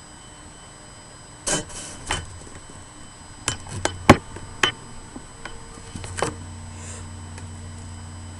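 A series of sharp knocks and bumps, about seven in all and the loudest near the middle, over a steady electrical hum with a faint high whine. A low hum grows louder about six seconds in.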